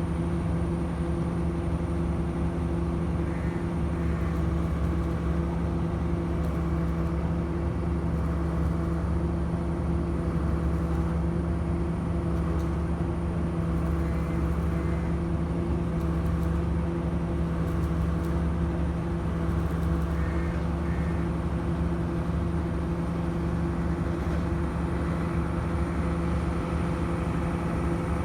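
Heavy engine of bridge-construction machinery running steadily at a constant speed, a deep even hum with no change in pitch.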